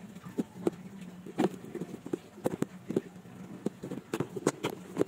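Irregular light clicks and knocks, more than a dozen, unevenly spaced, over a faint steady hum.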